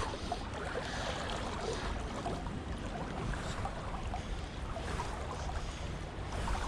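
River water running steadily past, with a low rumble of wind on the microphone.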